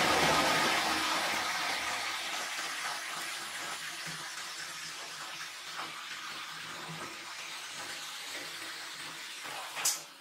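Electric motor driving a drum machine through V-belts and pulleys, running with a steady rushing, swishing noise over a faint hum. It is loudest at first and eases off over the first few seconds, with one sharp knock near the end.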